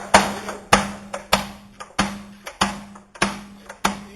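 Hammer blows on a wooden barrel's hoops during assembly: a steady rhythm of about seven sharp, ringing strikes, a little under two a second.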